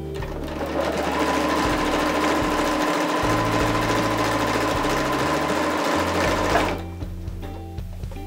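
Elna electric sewing machine stitching at a steady speed with an even motor whine, stopping abruptly about seven seconds in. Background music plays underneath.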